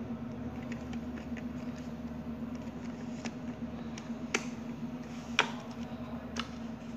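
Plastic clicks and light knocks of a toy foam-dart blaster and its dart magazine being handled, darts being pushed in and pulled out, with three sharper clicks about a second apart in the second half. A steady low hum runs underneath.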